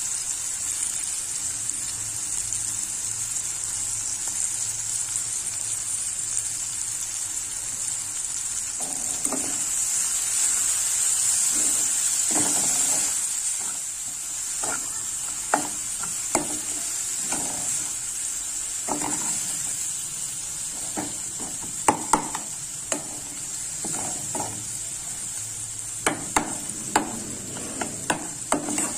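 Onions and tomatoes frying in oil in a metal pan, with a steady high sizzle. From about nine seconds in, a metal spoon scrapes and clinks against the pan as the spiced onion-tomato masala is stirred, more often near the end.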